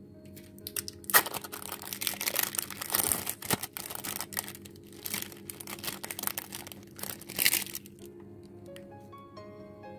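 Thin plastic film wrapper crinkling and crackling as it is peeled off individually wrapped processed cheese slices, starting about a second in and stopping near the end, with sharp crackles at a few points. Soft background music plays underneath.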